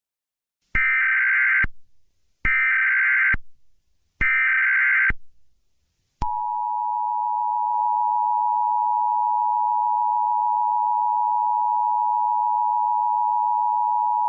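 Emergency Alert System signal for a National Weather Service flash flood warning: three short buzzy data bursts, the SAME header, about a second each, then the steady two-tone attention signal held for about eight seconds.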